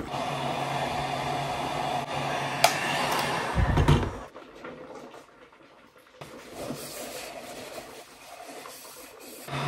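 Electric heat gun running with a steady blowing hum, melting old candle wax inside a jar; about four seconds in it stops with a low thump, leaving fainter noise until the hum starts again near the end.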